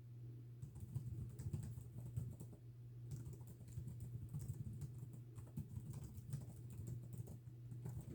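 Typing on a computer keyboard: a quick, continuous run of key clicks starting about half a second in, with a short pause near three seconds.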